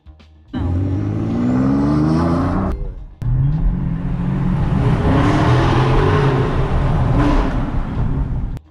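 Car engine accelerating, its pitch climbing steadily as it revs up, heard from inside the cabin. It cuts off suddenly about three seconds in and comes back with another run of acceleration.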